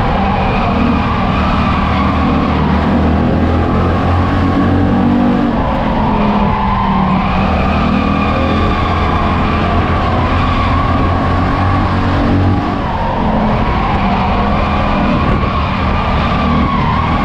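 Race car's engine running hard, heard from inside the cockpit, its note rising and falling over and over as it laps in a pack of other race cars.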